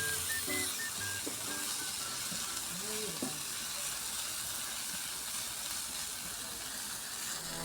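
Food frying in a pan: a steady sizzle.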